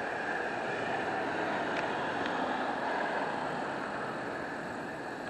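Steady noise of a motor vehicle, slowly fading near the end.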